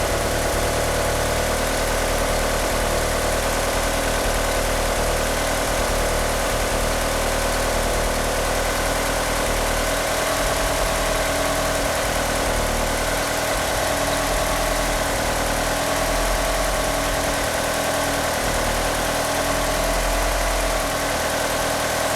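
Idle of a 1G Mitsubishi Eclipse GSX's turbocharged 2.0-litre 4G63 four-cylinder engine, running steadily with a few steady tones over the engine note. It is a rough idle on oversized 850cc injectors, with the engine unable to rev up.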